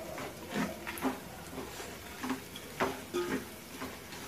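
Wooden spoon stirring thick spiced meat pickle in a metal pot, scraping and knocking against the pot in irregular strokes about once or twice a second.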